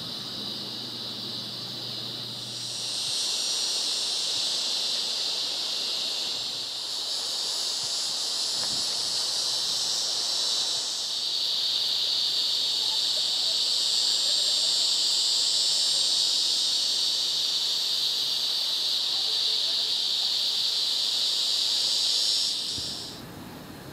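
Insect chorus: a loud, steady, high-pitched buzz with no breaks. It grows louder about three seconds in, changes tone again partway through, and cuts off abruptly near the end.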